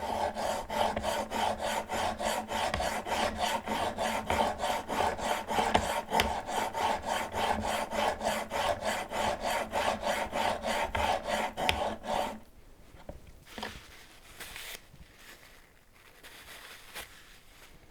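Steel chisel in a roller honing guide rubbed back and forth on a diamond sharpening stone, a rasping scrape in quick, even strokes that stop about 12 seconds in, followed by faint handling sounds.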